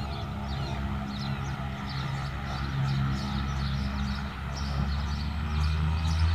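Cessna 208B Grand Caravan's single Pratt & Whitney PT6A turboprop and propeller at takeoff power during the takeoff roll: a steady drone that grows louder near the end.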